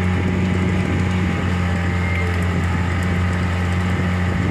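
Engine of a small outrigger tourist boat running at a constant speed under way, a low steady drone over the hiss of wind and water.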